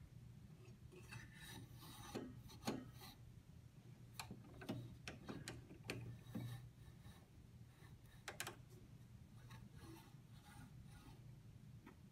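Faint handling sounds on a bandsaw: a block of wood scraping and knocking on the saw table and the guard-height knob being turned, with scattered clicks over a low steady hum.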